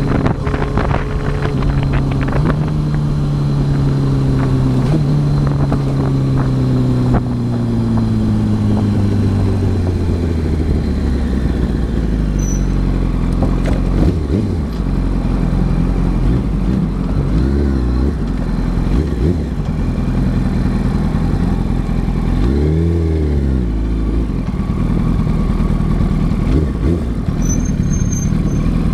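2008 Yamaha R1 inline-four with a TOCE aftermarket exhaust, heard from the rider's helmet: the engine note falls steadily as the bike slows over the first ten seconds, then settles to a low, steady rumble at walking pace. Two brief throttle blips come in the second half, the later one the larger.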